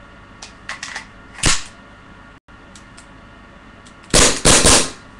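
Gas blowback CZ75 airsoft pistol: a few light clicks of handling, one sharp pop about a second and a half in, then a quick run of about three shots near the end.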